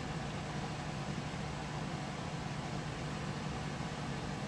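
Steady low hum with a faint even hiss: room tone, with no distinct sounds standing out.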